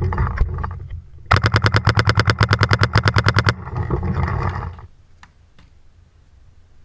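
Paintball marker firing a rapid string of shots, about a dozen a second for roughly two seconds, starting just over a second in. Rustling noise comes before and after the burst and fades about five seconds in.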